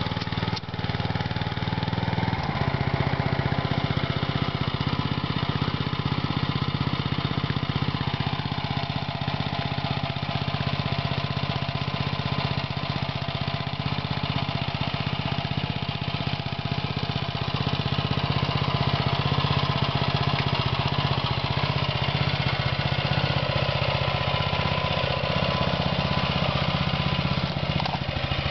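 Small petrol engine of a walk-behind hand-tractor cultivator running steadily while it tills soil, with a brief dip about half a second in.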